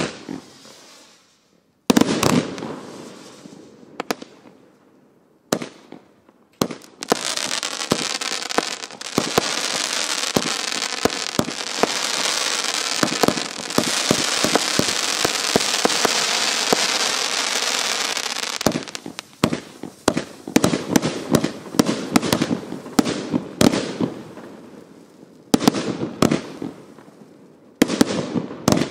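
Prometheus firework cake by Evolution Fireworks firing its shots. Sharp launch thumps and bursts come first. A long stretch of dense hissing crackle follows, then a quick run of sharp cracks, with more bursts near the end.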